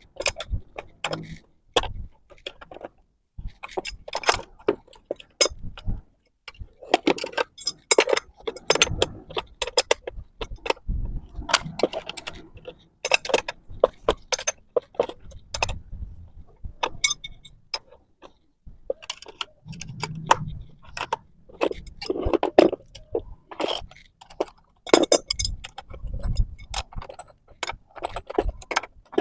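Irregular metallic clinks and clicks of a spanner and steel nuts and bolts as a butterfly valve is bolted up between pipe flanges, with a few dull knocks.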